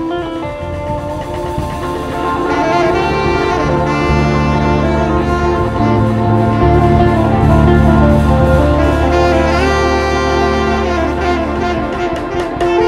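Live band music: a melodic lead line over sustained bass notes, growing louder toward the middle.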